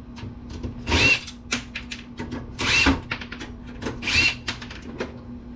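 Power drill-driver spinning in short bursts, four times, backing out the screws that hold a desktop PC's power supply, with small metallic clicks between the bursts.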